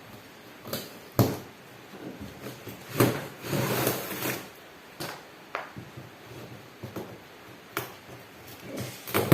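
Plastic wardrobe panels and their packaging being handled during unboxing: scattered sharp knocks and clacks, the loudest near the end, with a stretch of rubbing and rustling about three seconds in.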